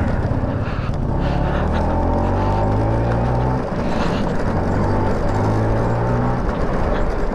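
Two-stroke engine of an LML NV scooter running under way. Its pitch climbs, dips briefly about three and a half seconds in, then picks up again before easing near the end.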